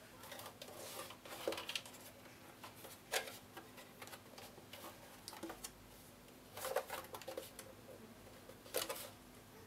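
Handling noise from the plastic housing of a HuanYang VFD being turned over in the hands: scattered rubs and rustles with a few sharp clicks, the sharpest about three seconds in, about seven seconds in and near the end.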